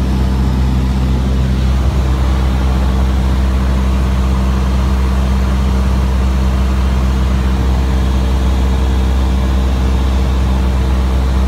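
Piston engine and propeller of a single-engine light aircraft, heard inside the cockpit, droning steadily at constant power with a deep hum.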